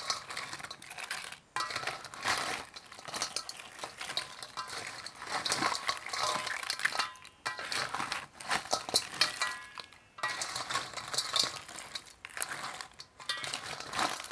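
Seasoned raw crabs being mixed in a basin, their shells clicking and clattering against each other and the basin in irregular, continual rattles.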